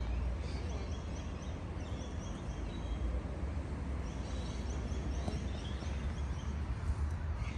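Outdoor ambience: a steady low rumble, with birds chirping in quick runs of short high notes, three or four times.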